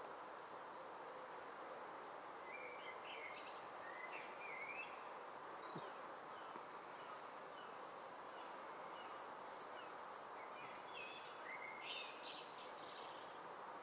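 Faint outdoor ambience: a steady background hiss with small birds chirping now and then, in short bursts of a few chirps about three to four seconds in and again near the end.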